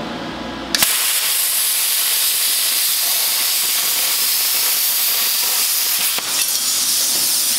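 Plasma cutter torch at 30 amps cutting through rusty mild steel sheet: a loud, steady hiss that starts suddenly about a second in, with a brief dip about six seconds in.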